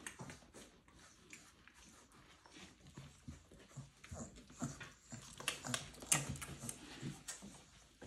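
Boerboel puppies playing, with scuffling, sharp clicks and short low vocal sounds, busiest in the second half.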